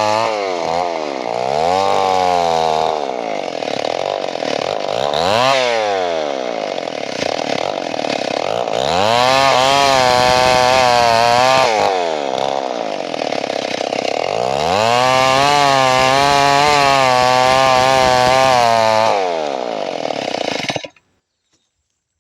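Two-stroke chainsaw revving up and down in short blips, then twice held at high revs for a few seconds as it cuts into wood. The engine cuts off abruptly near the end.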